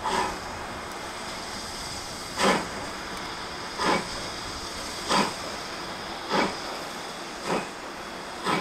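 Steam locomotive pulling away, its exhaust chuffs coming slowly at first and then quickening, from one about every two seconds to nearly one a second, over a steady hiss.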